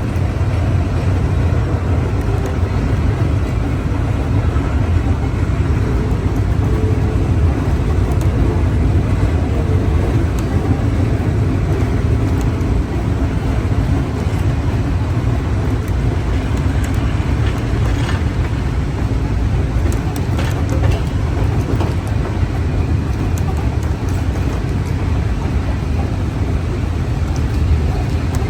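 Steady low rumble and rattle of a moving train, heard from aboard an open passenger car, with a few sharp clicks about two-thirds of the way in.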